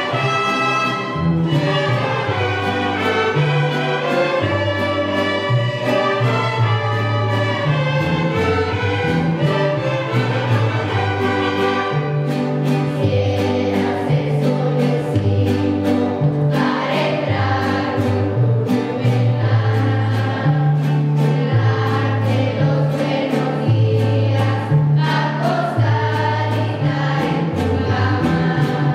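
Student mariachi ensemble performing live: violins and strummed guitars over a bass line that steps between notes, with the players singing together, the voices fuller from about twelve seconds in.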